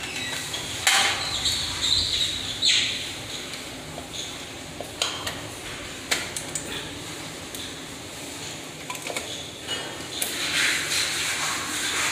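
Scattered metallic clicks and knocks of breaker-panel hardware and tools being handled, with a stretch of hissing rustle near the end.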